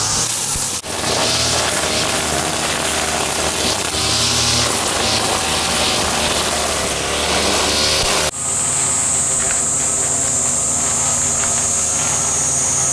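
Engine brush cutter running steadily as it cuts grass. About eight seconds in it gives way to a steady, shrill cicada chorus over a fainter low engine hum.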